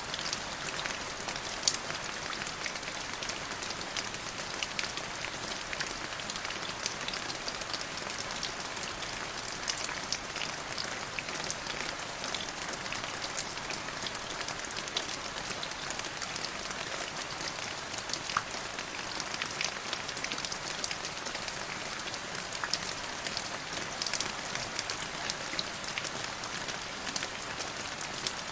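Steady rain falling, a continuous hiss dotted with many sharp ticks of single drops.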